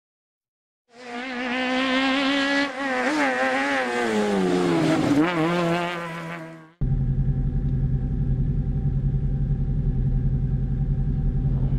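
A car engine revving, its pitch wavering and then falling, for about six seconds. After a sudden cut, a Peugeot 205 GTI's 1.6-litre four-cylinder engine idles steadily with a fast, even pulse, heard from inside the cabin.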